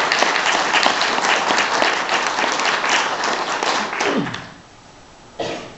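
Audience applauding, the clapping dying away about four seconds in, followed by a short noise near the end.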